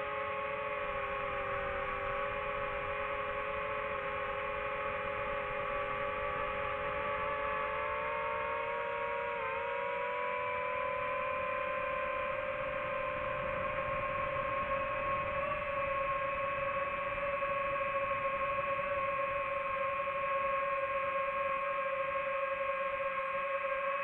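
FPV quadcopter's motors and propellers whining steadily in flight, the pitch shifting slightly about ten seconds in and the sound growing a little louder in the second half.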